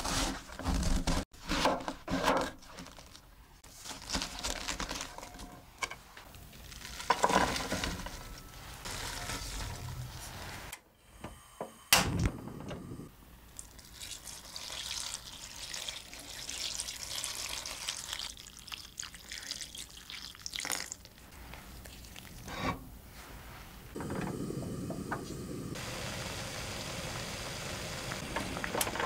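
A chef's knife slices crisply through a half head of cabbage onto a wooden board in a run of crunching cuts, with one sharp knock. About halfway through, water is poured into a pot of chopped cabbage. Near the end comes the steady bubbling of the cabbage boiling in the pot.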